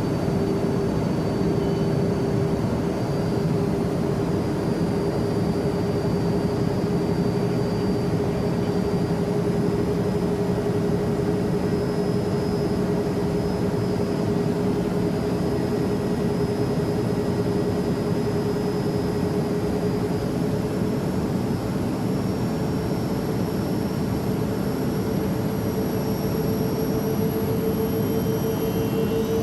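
Learjet business-jet cabin in flight: a steady roar of engines and airflow with a constant engine whine whose pitch creeps slightly upward near the end.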